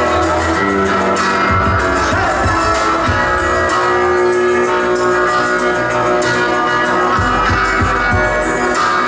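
Live rock band playing, with electric guitar to the fore over keyboards and drums.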